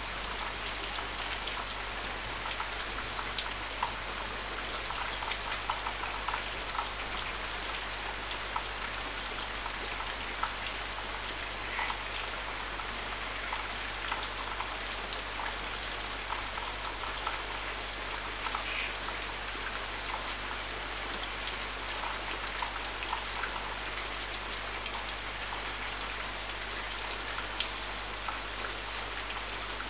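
Steady heavy rain pouring down, with many close drops ticking on hard surfaces.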